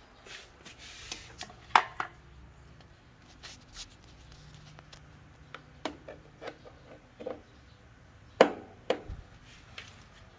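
Handling noise: scattered clicks, taps and rubbing as a sustain pedal's quarter-inch jack plug is fitted into the socket under an electronic keyboard. Two sharp knocks stand out, one a little under two seconds in and one past eight seconds. No keyboard notes sound.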